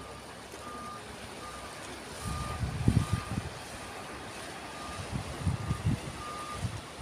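A vehicle's reversing alarm beeping at one steady pitch, about one beep every three-quarters of a second, over a steady hiss of outdoor noise. Low rumbling bursts come and go, the loudest about three seconds in and again around five to six seconds in.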